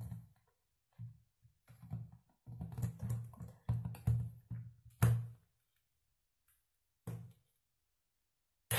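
Small electric hand-blender chopper run in short pulses, grinding beef into bakso meatball paste: a string of brief motor bursts with silent gaps. The last burst comes about seven seconds in.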